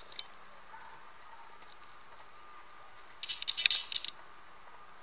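A short jingle of rapid, light metallic clicks about three seconds in, lasting under a second, over a faint steady high-pitched whine.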